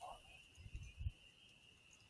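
Faint, steady high-pitched chirring of night insects, with a few soft low thumps about a second in.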